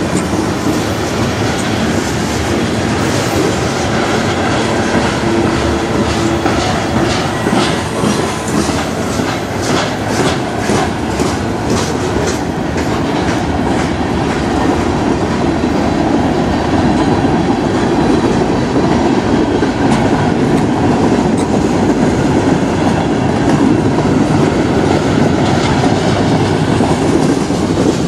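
Freight train cars (tank cars, then gondolas) rolling past: a steady rumble of steel wheels on rail, with clickety-clack of the wheels over rail joints, clearest in the first half.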